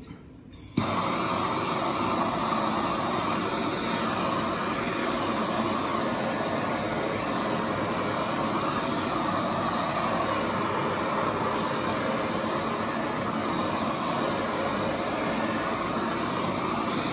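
Handheld gas torch lit with a sharp click about a second in, then a steady rushing hiss of its flame. The flame is played over a wooden panel to fuse the freshly brushed layer of encaustic wax.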